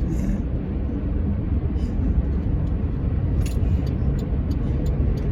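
Steady road and engine rumble inside a moving car's cabin at highway speed, with a few light clicks near the end.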